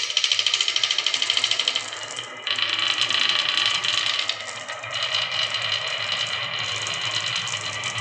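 Marbles rolling down a HABA wooden marble track, a dense, fast clatter of small clicks and rattles. It thins briefly about two seconds in, then picks up again.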